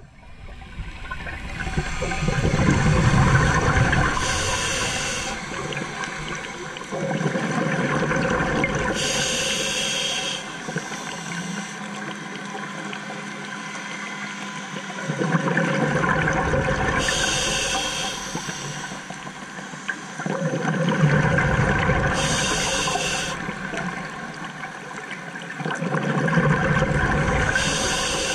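Scuba diver breathing through a regulator underwater: a short hiss of inhaled air, then a low rumble of exhaled bubbles, repeated in about four breaths.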